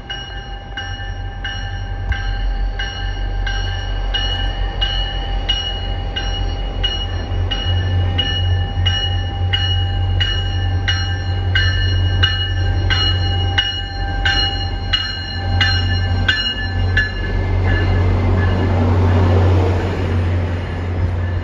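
MBTA diesel commuter locomotive pulling into a station with its bell ringing about twice a second over the low drone of the engine. The bell stops about three-quarters of the way through, and the rumble of the locomotive and bi-level coaches rolling past swells near the end.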